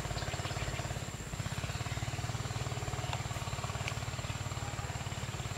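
A motor running steadily, heard as a fast, even throb of about a dozen pulses a second, with a thin high steady tone above it.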